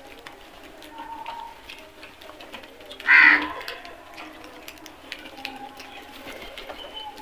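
A flock of house crows: one loud, harsh caw about three seconds in, with fainter calls and light ticks around it.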